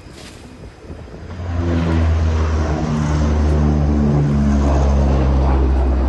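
Engine noise of an aircraft flying low overhead, coming in loud about a second and a half in and holding steady, a deep rumble under a hiss.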